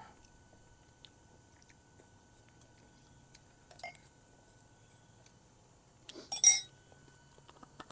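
Cups and utensils clinking: a short clatter about six and a half seconds in, with a few faint ticks before it and quiet otherwise.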